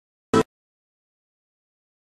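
Silence broken by one short, sharp hit about a third of a second in.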